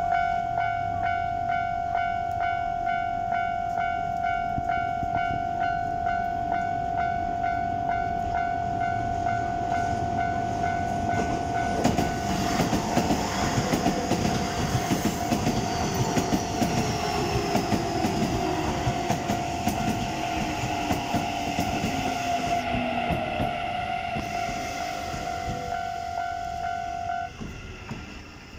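A Japanese level-crossing alarm rings a steady, pulsing electronic tone. About twelve seconds in, a Keikyu New 1000 series commuter train runs through, its wheels clattering over the rail joints and its motors whining down in pitch. The alarm cuts off near the end.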